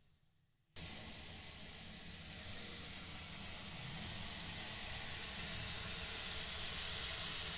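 Litti deep-frying in hot oil in a kadhai: a steady sizzle that starts abruptly about a second in and grows slightly louder.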